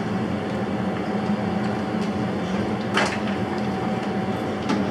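Kitchen extractor hood fan running with a steady hum and hiss. A sharp metallic clink about three seconds in and another near the end as the deep-fat fryer basket is handled.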